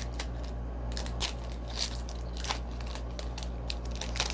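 Hockey trading cards being handled at a table: scattered light clicks and crackles, a few sharper ones, over a steady low hum.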